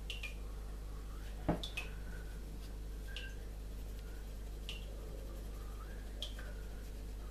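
Pencil strokes on drawing paper, as short ticks every second or so, with a single knock about one and a half seconds in, over a steady low hum.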